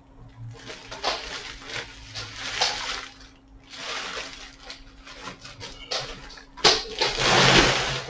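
Clear plastic bag rustling and crinkling as it is pulled off an electric guitar, in several bursts, the loudest near the end.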